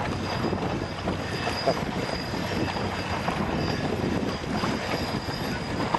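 Steady wind noise buffeting the microphone, with the wash of waves on open water.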